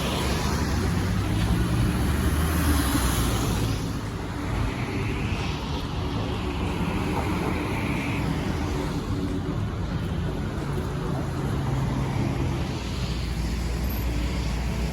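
Steady low rumble of motor traffic, with an engine running close by.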